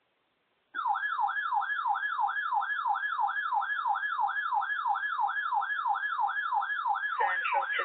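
Electronic siren-style alert tone starting abruptly and sweeping rapidly up and down, about three and a half sweeps a second. A second sound joins underneath near the end.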